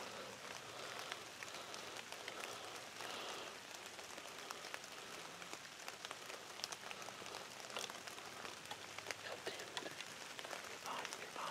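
Faint outdoor ambience: a steady hiss with many scattered, irregular soft ticks and crackles, like a light patter.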